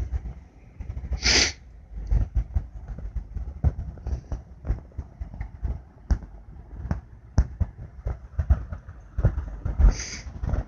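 Irregular clicks and knocks from a handheld phone being moved, over a low rumble, with two short bursts of hiss, one about a second in and one near the end.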